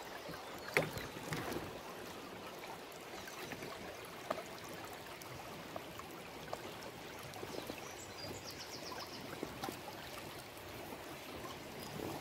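Flowing river water, a steady rushing and lapping, with a sharp knock about a second in and a few lighter clicks.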